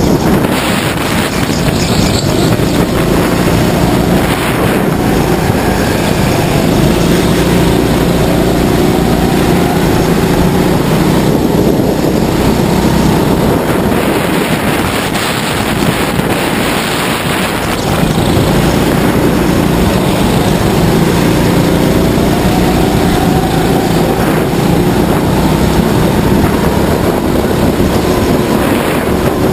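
Racing go-kart engine running hard under the driver, its pitch climbing and dropping back several times as the throttle is opened and eased, with wind rushing over the microphone.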